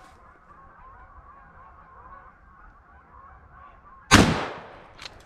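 A single loud gunshot about four seconds in, ringing away over about a second, over a steady, wavering high-pitched chorus of background wildlife.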